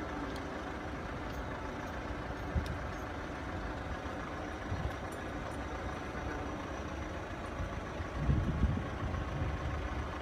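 Steady low rumble of road vehicles idling at a closed level crossing, with a few low thumps about eight seconds in.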